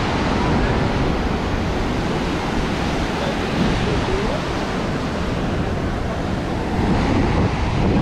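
Ocean surf breaking and washing up a sandy beach, a steady rushing, with wind on the microphone.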